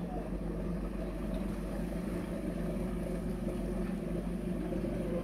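Engine of a wooden long-tail passenger boat running steadily as the boat pulls away from the landing under way.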